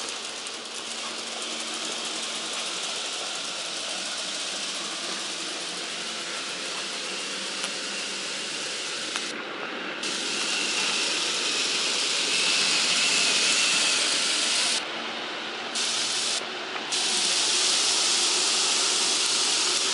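Graham Farish N gauge Class 66 model locomotive running with its coal train: the steady whir of its small electric motor and wheels on the track under a loud, even hiss. The hiss grows louder about halfway through and briefly drops out a few times near the end.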